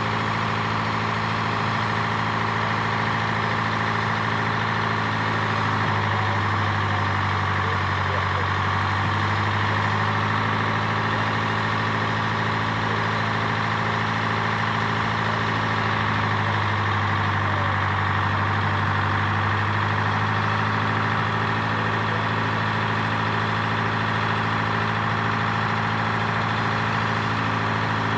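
Truck-mounted crane's engine running steadily at a low idle, its pitch sagging and recovering twice, about six and seventeen seconds in.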